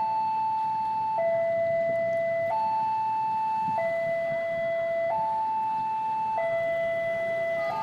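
Electronic warning signal of a railway level crossing sounding a two-tone alarm, a higher and a lower tone alternating, each held for a little over a second, warning that a train is approaching and the crossing gates are closing or closed. A low rumble of traffic lies under it.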